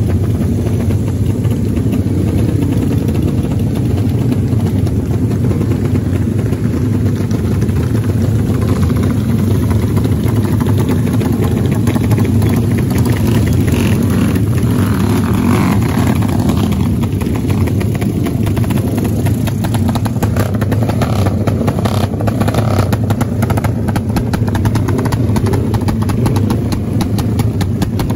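Motorcycle engines running loud and steady through aftermarket BSS exhaust silencers.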